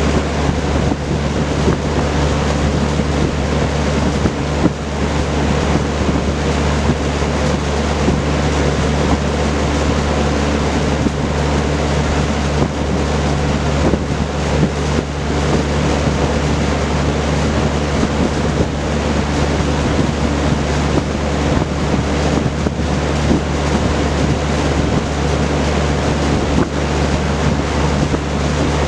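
Vintage Kenmore Roll-A-Matic 20-inch box fan running, its four-blade propeller making a steady rush of air over a low motor hum.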